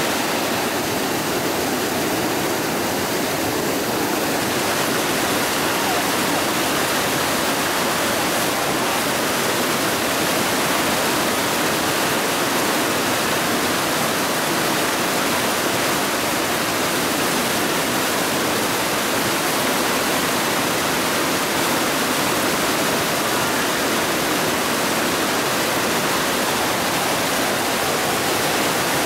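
Muddy water cascading in a foaming rush into a shallow pool: a steady, unbroken rush of falling water.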